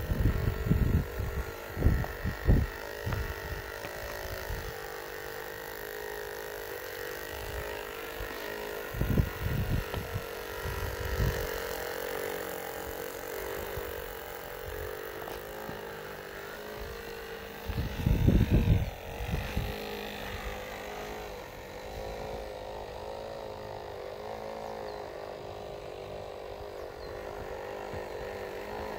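Battery-powered electric motors of a radio-controlled Lego rotary snow blower and its locomotive, whining steadily with a slightly wavering pitch as the train pushes through deep snow. Loud low rumbles break in near the start, about nine seconds in and again about eighteen seconds in.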